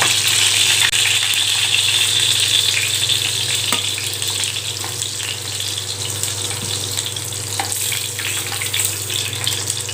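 Whole small brinjals sizzling in hot sesame oil in a pan, a steady hiss, with a few faint clinks of a steel ladle as they are lifted out.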